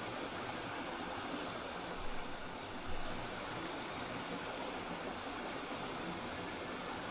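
Spring water flowing steadily over rocks in a natural stream, an even rushing with two brief low bumps about two and three seconds in.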